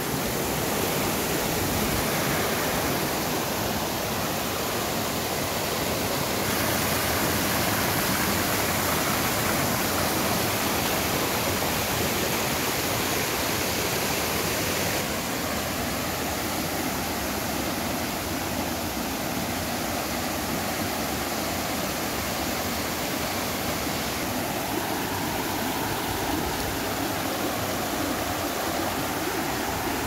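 Mountain stream rushing and splashing over granite boulders and small cascades: a steady, even rush of water that shifts slightly in tone a few times.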